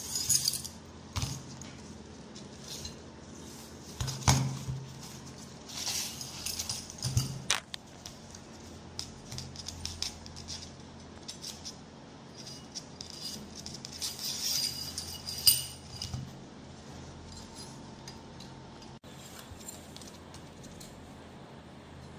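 Small metal parts of a disassembled revolver clinking and tapping as they are picked up, set down and fitted together by hand, in scattered irregular clicks with a louder knock about four seconds in and a sharp click past the middle.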